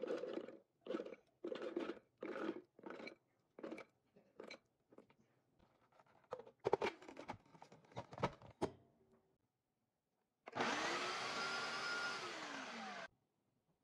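Chickpeas tumbling into a plastic food processor bowl in a quick series of rattling drops, followed by clicks and clatter as the lid is fitted. Near the end the food processor's motor runs for about two and a half seconds, chopping the chickpeas, its pitch dropping just before it cuts off.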